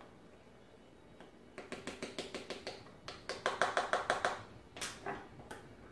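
Spoon stirring in a small cup, clicking quickly against its sides about six times a second for a few seconds, then a few single taps.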